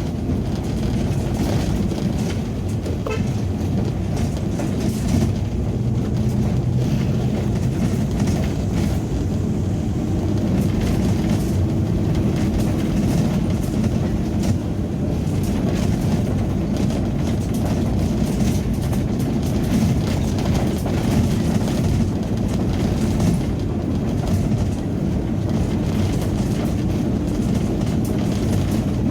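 Steady rumble of an ambulance driving along a forest road, heard from inside the cabin: engine and tyre noise.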